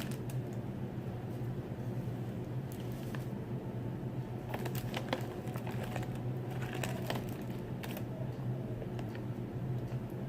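Chewing a hard, crunchy cookie: scattered crisp crackles and clicks in short clusters, over a steady low hum.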